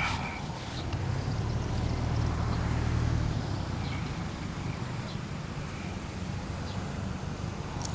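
A motor vehicle's engine running close by as street background, a low rumble that swells about a second in and eases after about three seconds.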